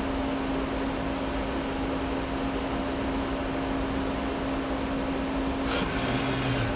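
Adept SCARA robot work cell humming steadily with one constant tone while the arm holds its position. Near the end the arm swings, with a short burst of noise and a brief lower whir of its motors.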